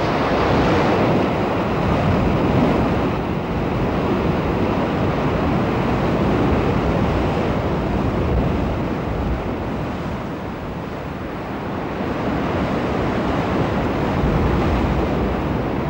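Heavy surf surging and breaking in a narrow rocky sea channel: a loud, steady rush of churning white water that eases briefly about two-thirds of the way through.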